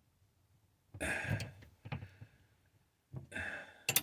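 A man's two breathy exhalations, a sigh about a second in and another huff near the end, with a couple of sharp clicks at the very end.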